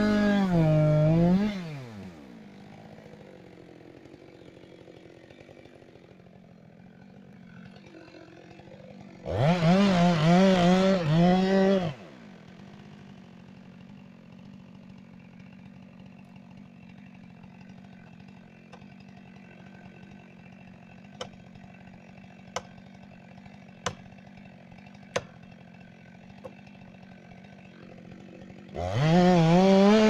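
Two-stroke chainsaw cutting into the base of a standing tree at full throttle, dropping to idle about two seconds in. It revs hard again for about three seconds around the ten-second mark, then idles with a few sharp knocks in the second half, and goes back to full throttle near the end for the next felling cut.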